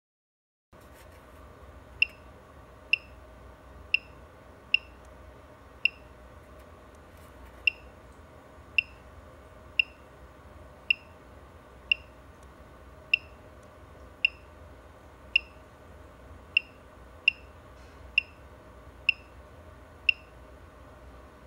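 Keypad beeps from a Tiger boiler controller, one short high beep per button press as its settings menu is stepped through, about once a second, over a steady low hum.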